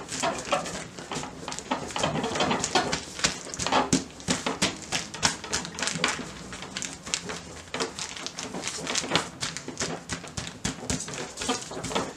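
Gloved hands patting and pressing minced meat flat inside a plastic freezer bag, making irregular soft pats with the crinkle of the plastic bag and gloves.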